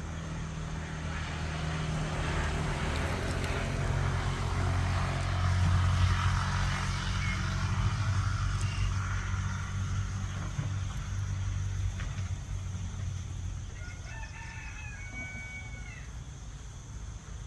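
A steady low hum with rushing noise, loudest in the first half. About fourteen seconds in comes one drawn-out animal call about two seconds long, stepping between a few held pitches, like a bird's crow.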